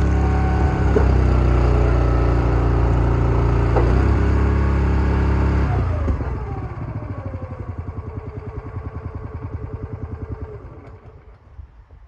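Small gas engine on a log splitter running steadily, then shut off about six seconds in and coasting to a stop, its firing falling in pitch and slowing into separate fading putts.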